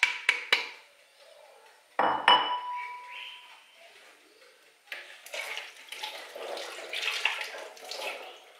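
Flour tipped from a bowl into a stainless-steel mixing bowl, with a few quick taps against the rim. About two seconds in comes a metallic clink with a short ring as the bowl and spoon are set down. The last few seconds hold irregular rustling and clatter.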